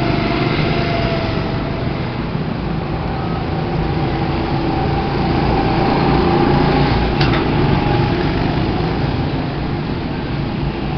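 Small go-kart engines running steadily as karts drive around the track, the sound swelling around the middle as two karts pass close by. A brief click comes a little after the swell.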